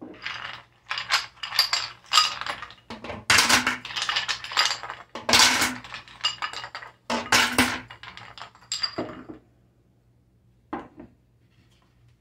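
Kitchen bowls and a utensil clinking and scraping against each other in a string of short, sharp strokes for about nine seconds, then a single knock near the end.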